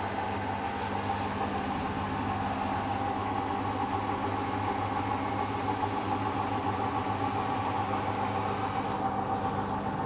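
Hoover Dynamic washing machine spinning a load of cloth mats. The motor and drum give a steady hum under a high whine that climbs slowly in pitch as the spin speed rises.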